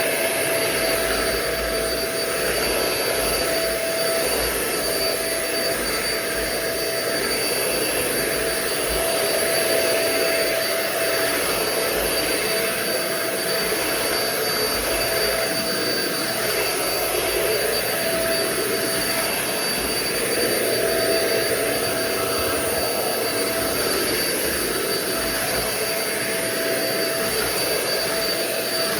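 Euro-Pro Shark bagless stick vacuum (EP600) running steadily, a continuous motor whine with a few high, steady tones over a broad rush of air.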